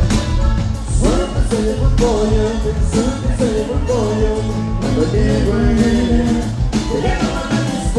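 Norteño band playing live, with steady bass and drums and a singing voice coming in about a second in.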